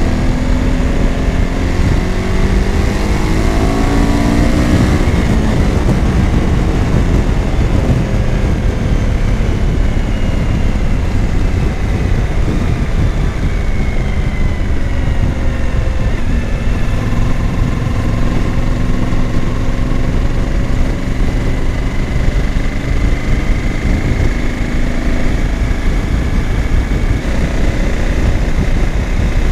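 Suzuki V-Strom 1000's V-twin engine under way with heavy wind rush. The engine pitch climbs over the first few seconds as the bike accelerates, then settles to a steady cruise with small rises and falls in pitch.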